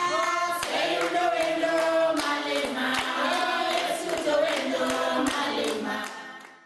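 Voices singing together in held, sliding notes, with sharp taps through the song, fading out near the end.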